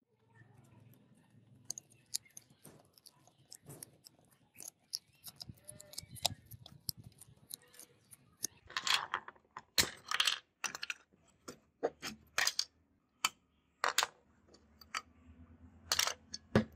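A small screwdriver working screws out of a rusty metal toy-car chassis while metal and plastic parts are pulled off and set down on a wooden table: irregular light clicks, taps and short scrapes, with a few louder clatters in the second half.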